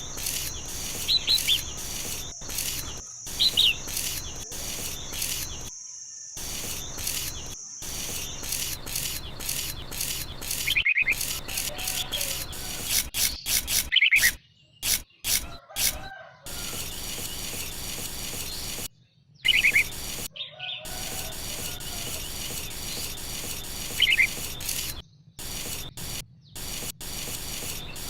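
Short bird chirps every few seconds over a steady low background hum, with a thin steady high tone during the first several seconds. The background cuts out abruptly several times.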